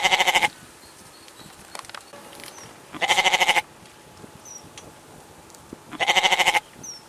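Goat bleating three times, evenly spaced about three seconds apart: each call a short, wavering bleat about half a second long.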